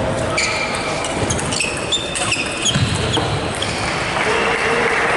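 Table tennis doubles rally: a quick series of sharp clicks as the ball strikes the bats and the table, with shoes squeaking on the court floor. The rally ends about three and a half seconds in, and a steady rush of hall noise follows.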